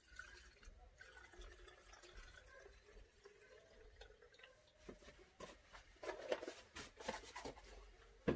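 Fuel being poured into a Stihl MS 170 chainsaw's tank, a faint liquid trickle with a wavering pitch. About six seconds in it gives way to a few louder knocks and clatter of handling.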